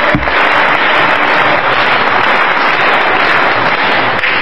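Audience applauding, a steady dense clapping, with a dull thump at the very start.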